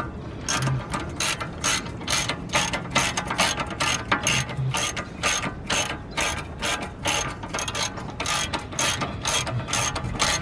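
Hand ratchet wrench clicking in quick repeated strokes, about three clicks a second, working a nut on a car's suspension strut.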